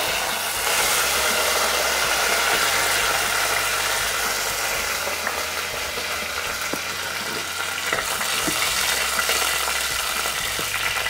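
Rampe (pandan) and curry leaves sizzling in hot coconut oil in a clay pot, a steady hiss with a few small pops. A wooden spoon stirs them near the end.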